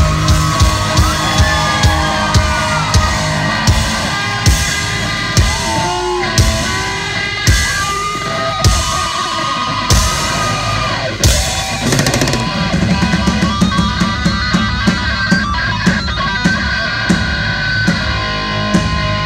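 Rock band playing live and loud: electric guitar with bending lead lines over a pounding drum kit and bass, the drumming quickening into rapid hits in the last few seconds.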